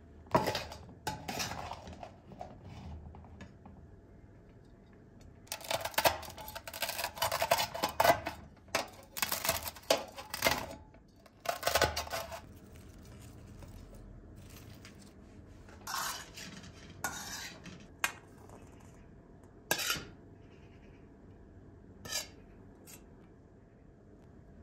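Flat metal skimmer scraping and clinking against the inside of a metal pot while scooping out cooked rice. The scrapes come in a short cluster at the start, a dense run through the middle, then a few single scrapes and clinks spaced out toward the end.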